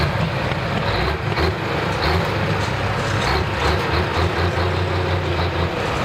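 Case IH super stock pulling tractor's diesel engine idling with the tractor standing still: a loud, uneven low rumble.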